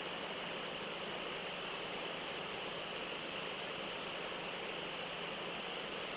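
Steady outdoor ambience picked up by a live cam's microphone: an unbroken hiss with a constant high-pitched hum running through it, and a few faint, short high chirps scattered throughout.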